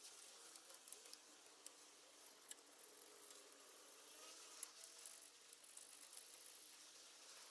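Near silence: a faint hiss with scattered small clicks.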